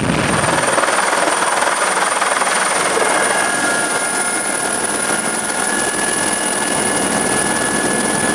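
Eurocopter EC120 helicopter running in flight: steady turbine and rotor noise with a high, steady whine over it. Further steady tones join a few seconds in.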